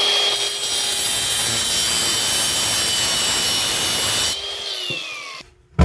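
A handheld power cutting tool running steadily with a high whine as it cuts back a sink's drain pipe, then winding down with a falling whine and stopping after about four seconds.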